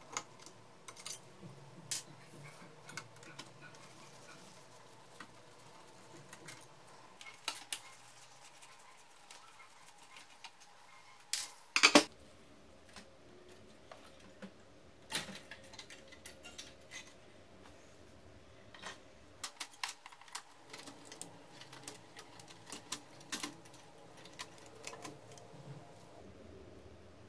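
Scattered light clicks and taps of plastic and metal printer parts being handled and worked with a screwdriver, at irregular intervals. A short clatter of a few sharper clicks about twelve seconds in is the loudest.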